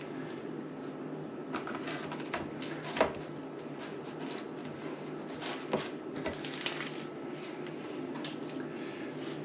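Cookie dough being rolled by hand and pressed into a metal muffin tin: soft handling noises with scattered light taps, and a sharper knock about three seconds in.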